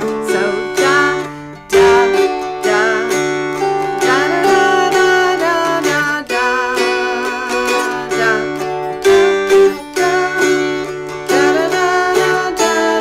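Two mountain dulcimers strummed together, playing a fiddle-style tune over a steady drone, with sliding and wavering melody notes.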